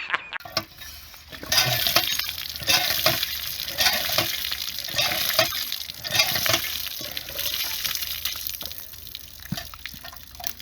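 Food sizzling in a hot pan while being stirred, with repeated scraping strokes of a spoon or spatula against the pan.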